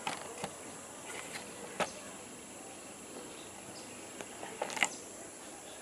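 Steady high-pitched drone of insects, with a few light clicks and knocks scattered through it, the sharpest about two seconds in and just before the end.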